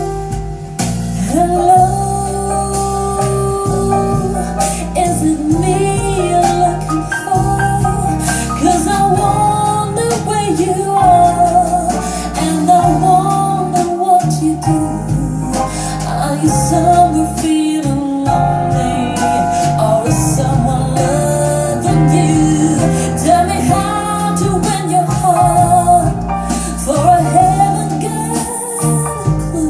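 A recorded song with a singing voice carrying the melody over steady bass notes and accompaniment, played back through Tannoy Canterbury SE floor-standing loudspeakers.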